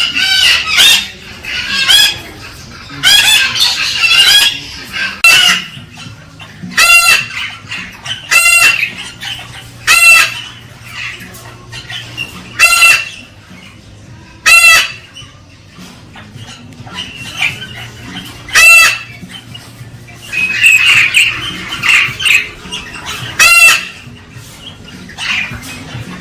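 Galah cockatoo calling loudly: short, harsh calls repeated about every two seconds, with denser runs of chattering calls near the start and again about three quarters through. Calls of the kind used to stimulate a female galah to breed.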